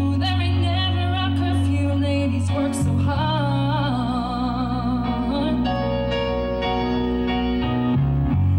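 A woman singing a song live into a handheld microphone, amplified, over instrumental accompaniment whose low notes change a couple of times.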